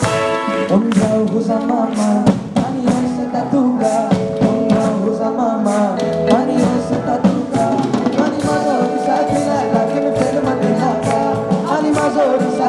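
A live band plays a pop song with drum kit, congas, electric guitars and keyboard, and two boys sing the melody into microphones.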